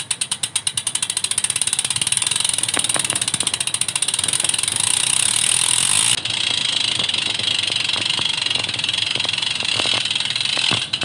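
Bicycle rear-hub freewheel ratchet clicking as the wheel spins. The clicks speed up over the first couple of seconds into a steady, high-pitched buzz, and the tone changes abruptly about six seconds in.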